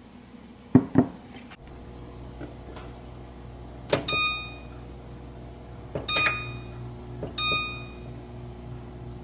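Two thumps about a second in, then a low steady hum comes on. Three beeps follow from an electric range's touch control panel as a cooktop burner is switched on and set to 9.0.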